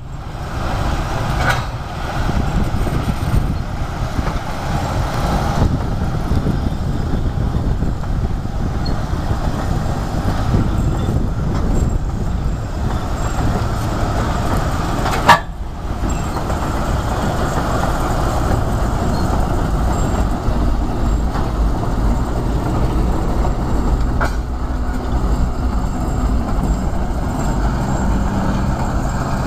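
TEM2 shunting locomotive's six-cylinder diesel engine running steadily as it moves a coupled VL10 electric locomotive along, with the rumble of wheels on the rails. A single sharp, loud bang about halfway, and fainter clicks near the start and about two-thirds of the way in.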